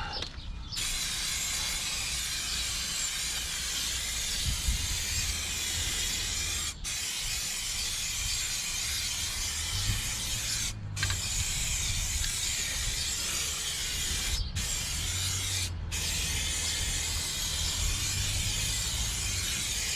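Aerosol can of white primer spraying in long, steady hisses onto a steel wheel. The nozzle is let go briefly four times before the spraying resumes.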